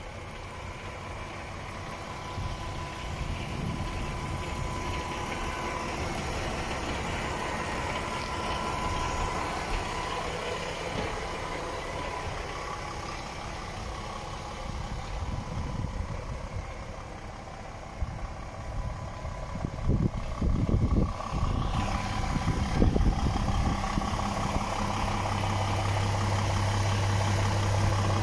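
DAF XF 530 truck's PACCAR MX-13 straight-six diesel idling steadily, with a few knocks and clatter about twenty seconds in.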